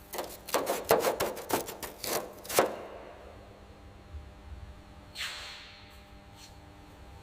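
A quick run of about a dozen sharp clicks and knocks, the last one the loudest, then a brief soft swish a couple of seconds later.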